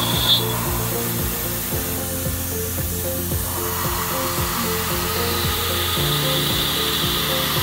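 Tormach PCNC 770 CNC mill cutting aluminium with an end mill: a high steady whine that stops just after the start and comes back about three and a half seconds in. Background music plays underneath.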